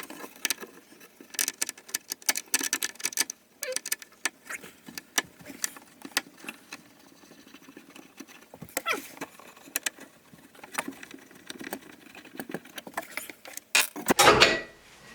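Stubby screwdriver working the screws of a vanity's false sink-front panel: irregular small metallic clicks and scrapes, with a louder scrape and rattle near the end.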